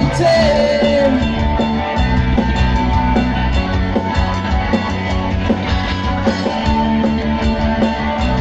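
Live rock band playing an instrumental passage: distorted electric guitars, bass guitar and a drum kit keeping a steady beat.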